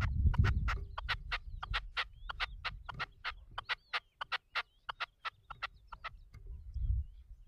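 Caged red-legged partridge decoy calling: a fast, even run of sharp, clipped notes, about four a second, that stops about six seconds in. A low rumble underlies the start and returns near the end.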